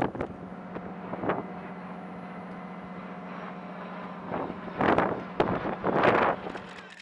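A steady low machinery hum, with several short gusts of wind buffeting the microphone, the loudest about five and six seconds in.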